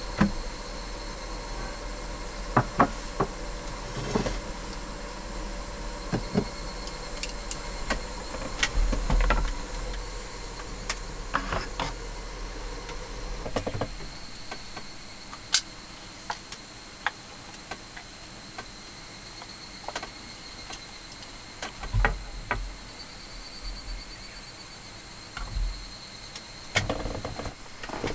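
Scattered clicks, taps and knocks from handling cookware, utensils and food packaging, over a steady background hiss with a faint high insect trill.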